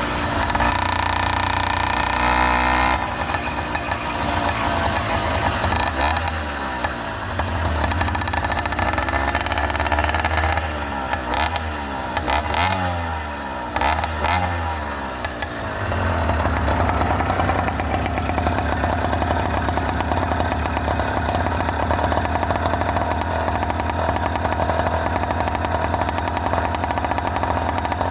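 Small engine of a motorized bicycle running under way. Its pitch rises and falls through the middle with a few rattling knocks, then it settles into a steady run.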